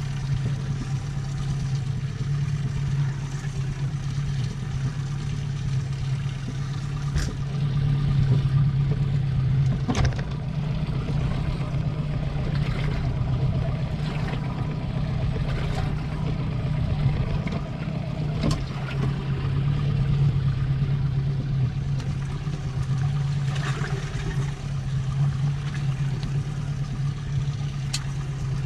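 Boat engine running steadily with a low, even hum, with a few sharp knocks scattered through it.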